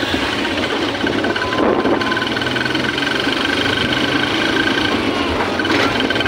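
Engine of the vehicle carrying the recorder, running steadily as it drives along a road, with road and tyre noise.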